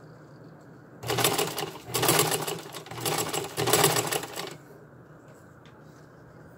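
Vintage black sewing machine stitching ribbon onto a collar strap: a rapid needle clatter that starts about a second in, eases briefly twice, and stops after about three and a half seconds.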